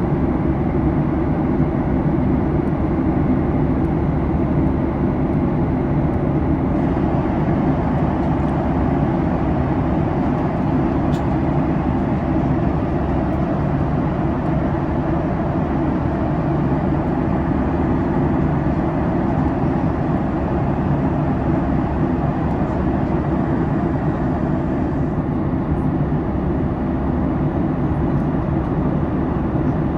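Steady cabin noise inside a Boeing 737 MAX in flight: an even drone of the engines and airflow past the fuselage.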